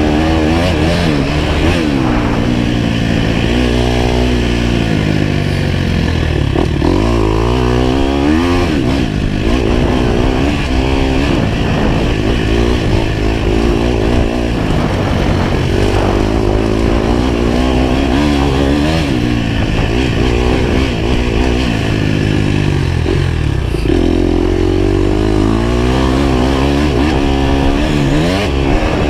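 Dirt bike engine, heard on board, revving up and dropping back again and again as the bike accelerates, shifts and slows along a motocross track.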